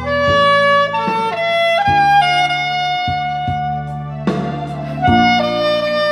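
Soprano saxophone playing a ballad melody in held notes that step up and down in pitch, over a backing track with low sustained accompaniment.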